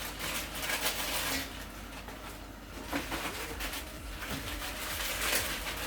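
Kitchen handling noises as instant noodles are put into a pot of boiling water: irregular scratchy rustling, stronger about a second and a half in and again near the end.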